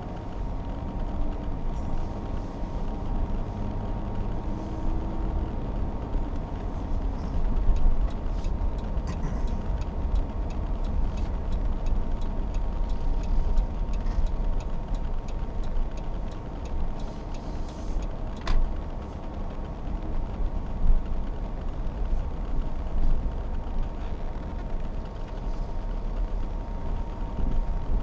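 Car driving, heard from inside the cabin: a steady low rumble of engine and tyres, with a faint steady high tone and one sharp click past the middle.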